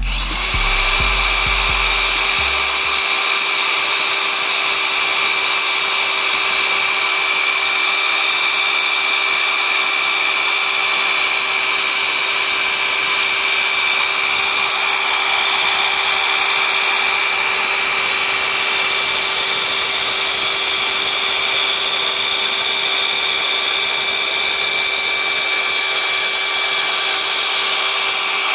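Steady machine whine with hiss from a running electric motor, holding one pitch without change.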